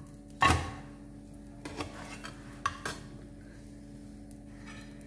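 A moong dal pancake flipped over in a non-stick frying pan, landing with a thump about half a second in, followed by a few light clicks of the spatula against the pan, over a faint low steady hum.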